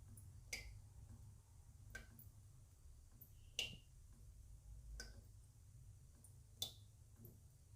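Water drops falling one at a time: five sharp plinks about a second and a half apart, each with a brief pitched ring that differs a little from drop to drop, over a faint low hum.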